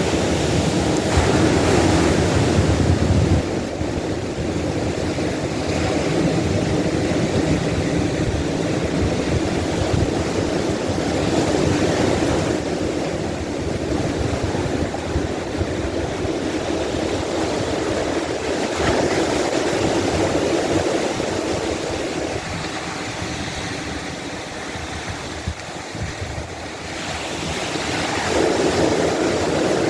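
Ocean surf breaking on a beach: a continuous rushing wash that swells and eases as waves come in every several seconds.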